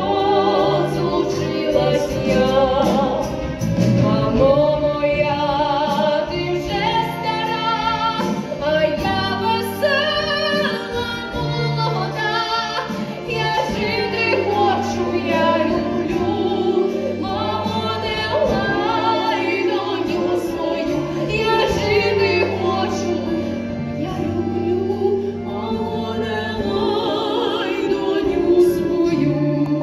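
Two women singing together with vibrato over a steady instrumental backing.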